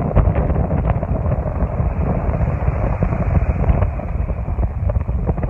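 Strong sea wind buffeting the microphone: a loud, steady low rumble.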